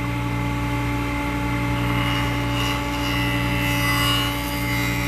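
Woodworking jointer running with a steady hum while a wooden table leg is fed through its cutter head, the cutting sound shifting and rising about two seconds in. The cut tapers the eight-sided leg.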